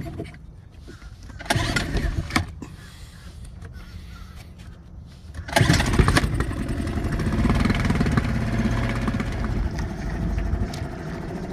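A few knocks, then a small dinghy outboard motor starts about halfway through and runs steadily.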